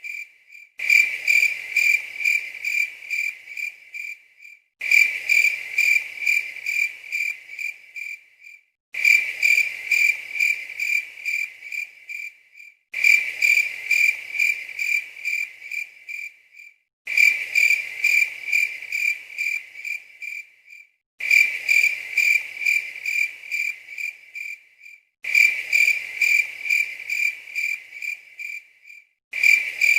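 Cricket chirping, a high pulsing trill at about three chirps a second, in runs of about three and a half seconds that repeat every four seconds with short gaps.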